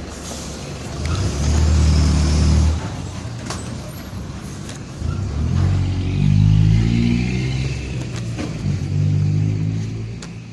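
Mercedes-Benz OF-1722M bus's front-mounted diesel engine pulling under load. It swells loudly three times, with quieter dips between, and sharp rattles from the body. The bus's differential is known to growl.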